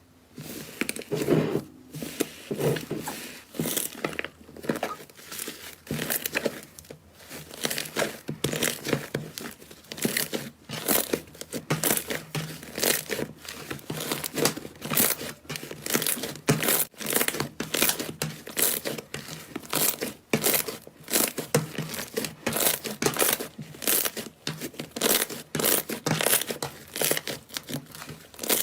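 Slime being squeezed and stretched by hand, giving a steady run of crackling, popping squishes, a few a second.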